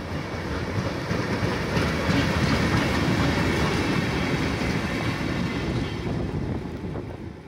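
Diesel-hauled train passing close by as it departs: a low engine rumble with wheels running over the rail joints. It is loudest a couple of seconds in and fades as the train moves away.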